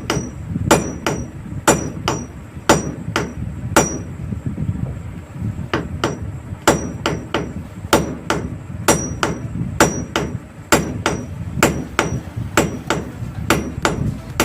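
Hammer blows on a ceiling fan's shaft, driving the worn shaft down and out of the stator core. The blows come about two to three a second with a brief pause near the middle, each a sharp metal-on-metal strike with a short ring.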